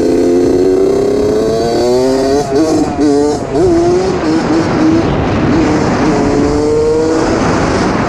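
2003 Suzuki RM60 two-stroke mini dirt bike engine revving under riding. Its note climbs, wavers up and down with the throttle about three seconds in, then climbs again, before fading into a hiss near the end.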